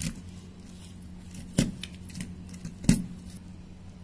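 Crushed ice pressed by hand into a small glass tumbler around a wooden stick, with scattered sharp clinks and knocks of ice and glass; the two loudest come about a second and a half and three seconds in. A steady low hum runs underneath.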